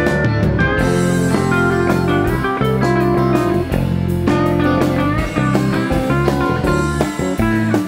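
Live rock band playing an instrumental jam: electric guitar lines over bass and drums.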